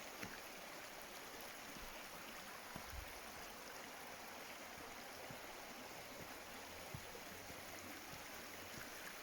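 Steady rush of a flowing stream, faint and even, with a few soft thuds about a quarter of a second, three seconds and seven seconds in.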